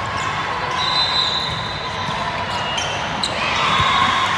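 Echoing din of a large indoor sports hall during a volleyball rally: sneakers squeaking on the court, scattered knocks of the ball being played, and voices of players and spectators, swelling about three seconds in.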